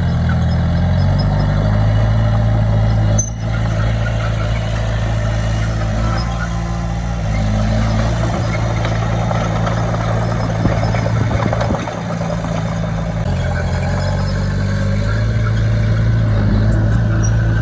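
Bulldozer's diesel engine working under changing load, its pitch stepping up and down several times, with a stretch of clatter about ten to twelve seconds in.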